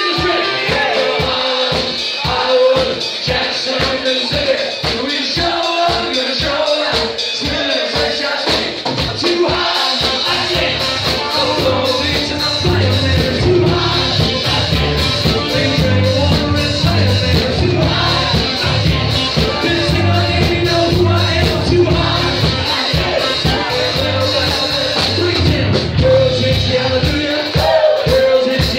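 Live band playing a funk-pop song with a singer over drums and keyboard, with a steady drum beat. About ten seconds in a heavier bass comes in and fills out the low end.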